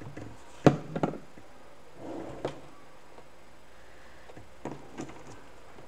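A few sharp clicks and light knocks from buttons being pressed onto a glued canvas and a plastic tacky glue bottle being set down on the tabletop. The two loudest come close together about two-thirds of a second in, with softer clicks later.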